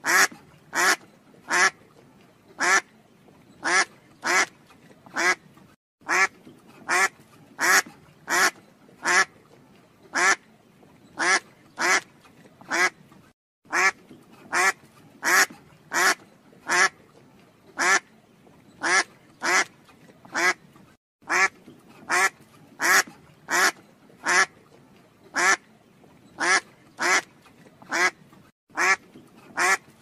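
Duck quacking: a steady run of short, loud quacks about two a second, broken by a brief pause every seven or eight seconds.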